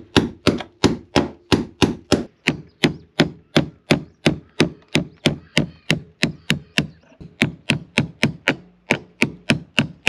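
Steady hammer blows, about three a second, each a sharp knock with a brief ring, as a hammer and punch drive old nails out through the wooden hull planking.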